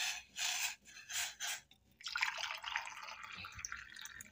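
Hot water poured in a thin stream into a stainless steel mug holding a tea bag, a steady splashing that starts about two seconds in. Before it, a few short scraping sounds.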